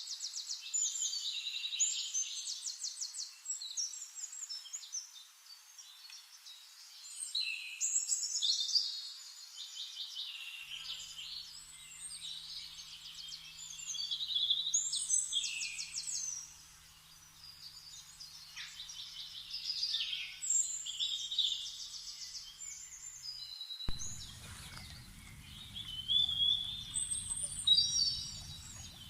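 Songbirds singing in a forest, overlapping phrases of chirps and fast trills repeating every few seconds. A low rumble joins in near the end.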